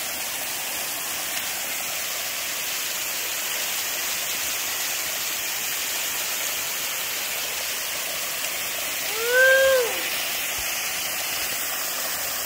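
Waterfall pouring steadily, heard up close. About nine seconds in, a person gives one short call that rises and falls in pitch over the water.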